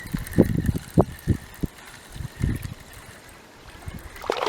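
Water splashing and sloshing in a few short bursts over the first couple of seconds as a hooked carp thrashes at the surface, then quieter.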